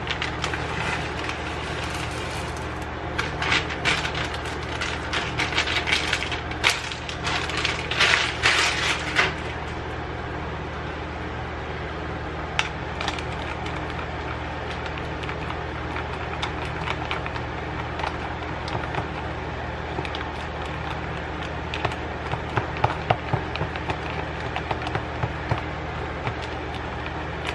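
A plastic bag of chocolate chips crinkling and rustling while chips are shaken out, dense for about the first nine seconds. Then a thin wooden stick stirs the chips into a soft mixture in a plastic container, with scattered light scrapes and taps against the sides.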